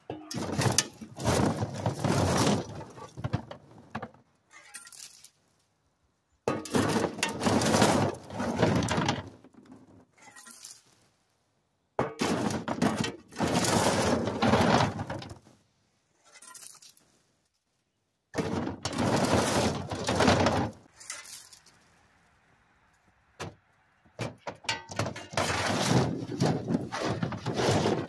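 Dry ears of open-pollinated field corn clattering as they are dumped load after load, in five rattling bursts of two to four seconds each with short pauses between.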